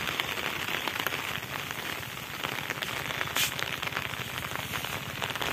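Steady rain falling, a dense patter of drops throughout.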